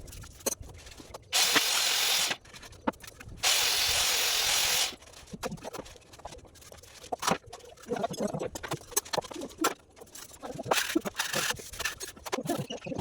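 Two loud hissing sprays, each about a second long, near the start, followed by scattered light knocks and scrapes of hand work.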